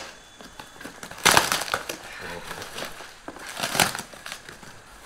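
Packing material being torn and crumpled by hand: two loud rustling tears, about a second in and near four seconds, with lighter crinkling between.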